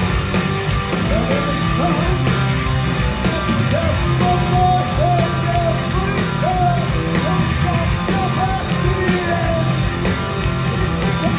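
A live post-hardcore band playing loud with distorted guitars, bass and drums, and a singer shouting the vocal line over them.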